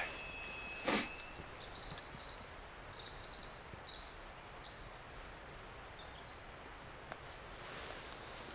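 Small birds singing rapid high trills of repeated notes, one trill after another, over a quiet outdoor background. A single sharp click comes about a second in.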